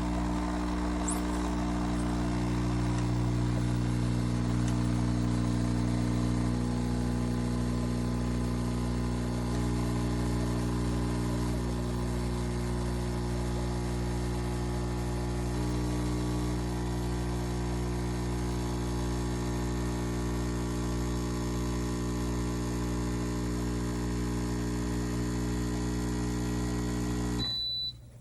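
MAttinata Mattino Ultra 20-bar espresso machine's pump running with a steady electric buzz, as in pulling a shot. It stops suddenly near the end with a brief high tone.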